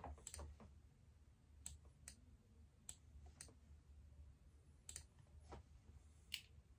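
Near silence: quiet room tone with about eight faint, sharp clicks at irregular intervals.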